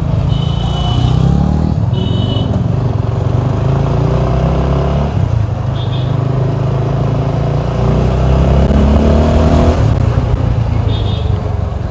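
Motorcycle engine running and pulling as the rider gathers speed in traffic, with wind noise on the helmet camera. A few short high-pitched beeps cut in, the first two near the start and others about six and eleven seconds in.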